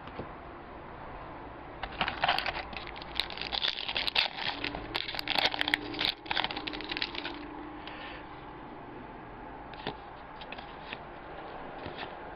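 Crinkling and tearing of a foil hockey-card pack being ripped open, dense for about five seconds, then a few light clicks as the cards are handled.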